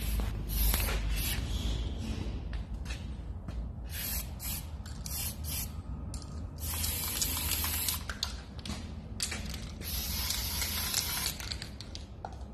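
Aerosol spray-paint can hissing in a run of short bursts, then two longer sprays of over a second each in the second half, as the welded steel intake pipe is coated, over a low rumble.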